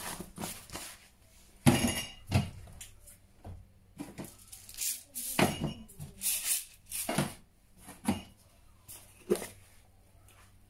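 Kitchen spice containers and their lids being handled on a counter: an irregular string of knocks, clinks and rattles, loudest about two seconds in.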